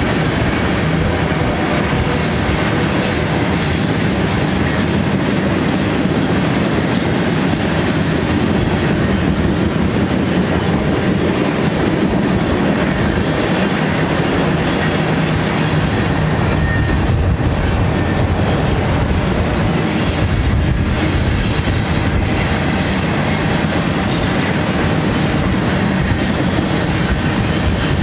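Mixed freight train of tank cars and covered hoppers rolling past: steel wheels running on the rails in a steady, loud, continuous noise.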